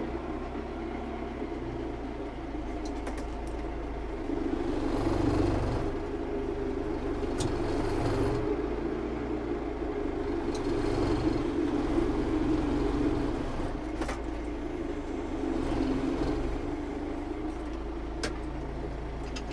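Tractor engine running, heard from inside the cab, with its speed rising and easing off a few times as the front loader works round hay bales. A few sharp clicks and clatters sound over it.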